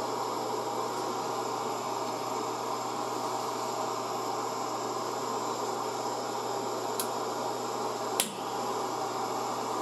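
Gas torch flame burning steadily into a two-brick forge, a constant hiss, while a knife blade heats to hardening temperature. Two sharp clicks near the end, the second louder.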